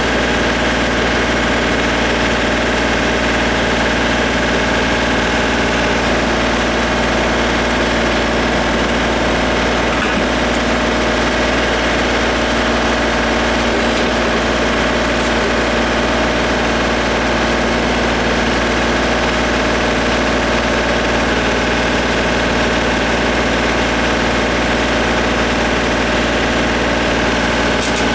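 John Deere compact tractor-loader-backhoe's diesel engine running steadily at one constant speed, with no revving.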